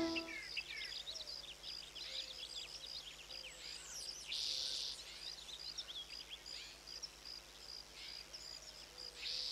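Faint outdoor ambience of small birds chirping, with many quick sweeping chirps over a steady high note repeated about twice a second. A brief hiss comes about halfway through.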